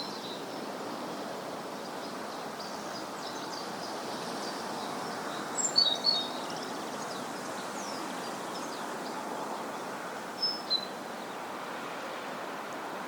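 Countryside ambience: a steady background rush with small birds chirping. A few short, high chirps stand out about halfway through and again a little later.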